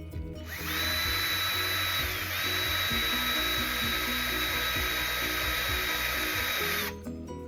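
Small high-speed power tool running for about six seconds with a steady high whine that dips briefly about two seconds in, then cuts off sharply; background music plays underneath.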